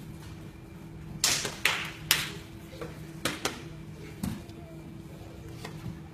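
A run of sharp slaps and thuds on the training mat, about seven in all, most of them in the first half: aikido partners' feet and bodies striking the mat as techniques are demonstrated. A faint steady hum runs underneath.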